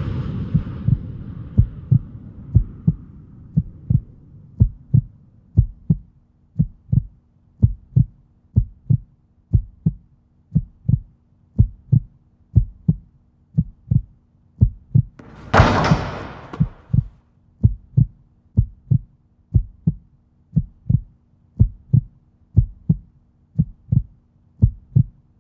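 Heartbeat sound effect: low, evenly spaced thumps about twice a second over a faint steady hum. The noise of a crowded hall fades out over the first few seconds, and a brief rushing noise comes about halfway through.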